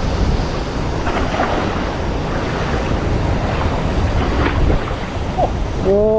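Wind buffeting the microphone, with a steady rush of water beneath it. A short voice-like call comes near the end.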